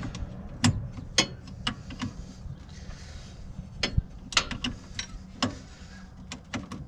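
Hand wrenches clicking and knocking against the metal fittings of a side-by-side's emergency brake cable as the nut is held and loosened: irregular sharp metal clicks, more than a dozen.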